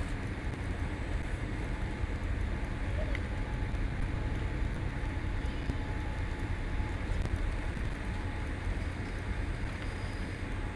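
Steady low rumble heard inside the cabin of a Boeing 787 airliner rolling along the runway after touchdown: engine, airflow and wheel noise.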